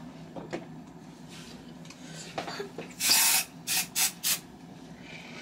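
A spray bottle sprayed four times: one longer hiss about three seconds in, then three short quick bursts. A steady low hum runs underneath.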